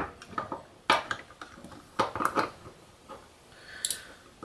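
Small metal clicks and taps as a screwdriver works on a plunger-type limit switch while it is taken apart: a sharp click about a second in, a cluster of clicks around two seconds in, and a brief scrape near the end.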